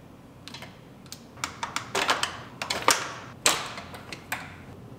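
An irregular run of sharp clicks and clacks with brief rustles: the oil cooler line fittings and their small retaining clips being worked loose by hand. The loudest clacks come a little past the middle.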